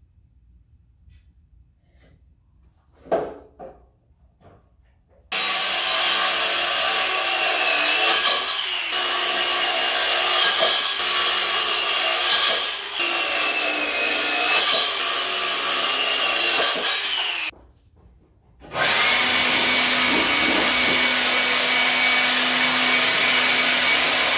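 A knock about three seconds in, then a circular saw running and cutting wood for about twelve seconds, its motor whine wavering as it works through the board. After a short pause an electric leaf blower starts and runs steadily.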